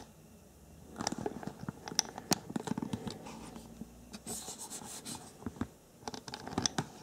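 Handling noise from a handheld camera: irregular scratching, rubbing and small clicks of fingers on the camera body as it is moved and re-aimed, starting about a second in.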